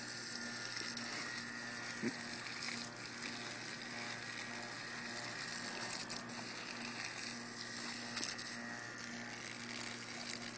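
Water jet from a garden hose hissing steadily onto grass, with a few sharp splashes as a dog bites into the stream.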